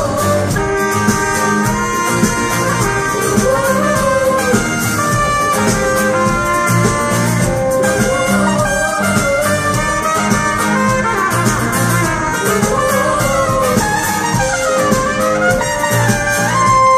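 Live band playing an instrumental passage with a saxophone lead line that bends and slides over the full band.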